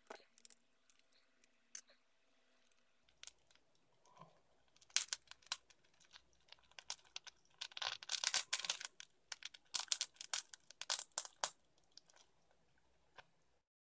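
Adhesive tearing as a cracked tablet touch-screen glass is peeled off its frame. A few faint clicks come first, then a long run of sharp crackling and ripping bursts for about six seconds, which dies away near the end.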